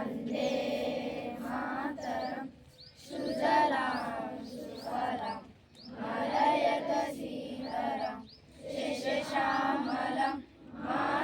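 Many children's voices singing or chanting together in unison, in phrases of two to three seconds with short breaks between.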